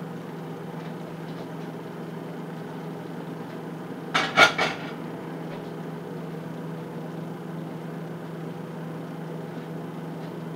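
Heavy Lodge cast iron lid set down on a stovetop, clanking three quick times a little past four seconds in, over a steady low hum.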